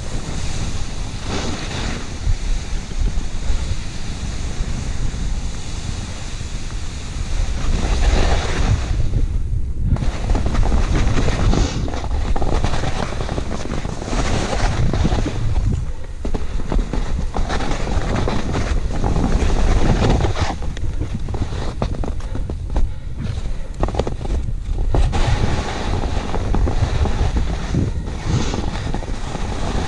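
Skis hissing and scraping through snow during a downhill ski run, swelling and fading over stretches of a few seconds, with heavy wind rumble on the camera microphone.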